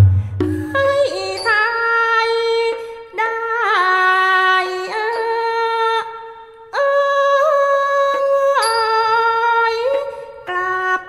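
Thai classical singing from a piphat performance: one voice holds long, ornamented notes, sliding and wavering between pitches. It breaks off briefly about six seconds in.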